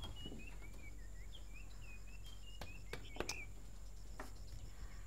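Small birds chirping over and over in short notes that slide up and down, with a few sharp clicks about three seconds in.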